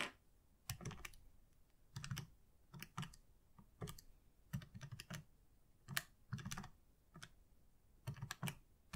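Keys being pressed on a Casio fx-991EX ClassWiz scientific calculator: irregular faint clicks, some single and some in quick clusters of two or three.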